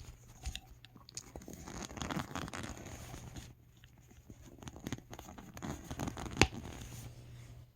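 Close handling noise of a plastic doll and its parts: irregular rubbing and rustling, with one sharp click about six and a half seconds in.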